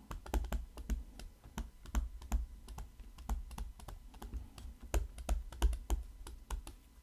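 Stylus tapping and scratching on a tablet screen during handwriting: a stream of irregular light clicks, a few a second, each with a dull low knock.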